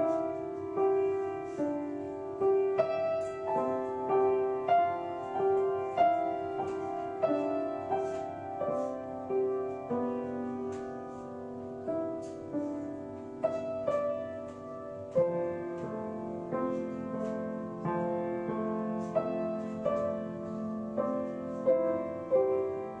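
Solo piano playing a slow, gentle melody, with notes struck at an even, unhurried pace over sustained lower notes.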